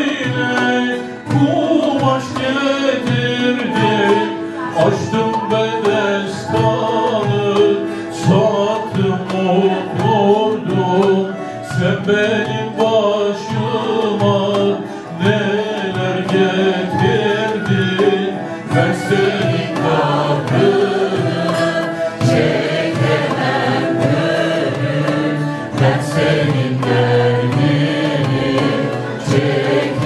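Live Turkish folk song (türkü): plucked string instruments and percussion keeping a steady beat, with voices singing along.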